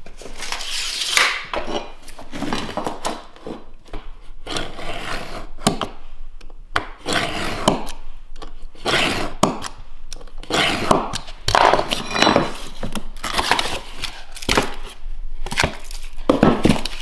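Vinyl plank flooring being cut by hand: a series of scraping, rasping strokes, roughly one a second, with light knocks of the plank being handled.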